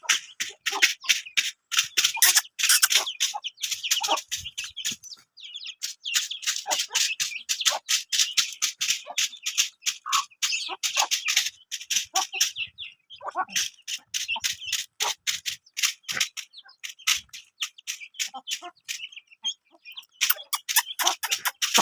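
Chickens pecking at food, a rapid, irregular run of sharp clicks several times a second.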